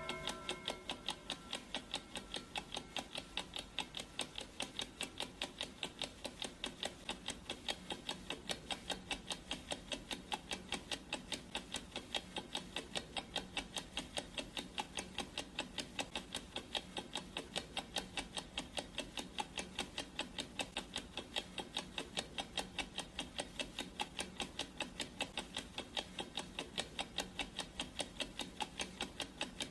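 Clock ticking sound effect: a steady, even run of sharp ticks. In the first second the last of a ringing chime, which marks the halfway point of the countdown, fades out.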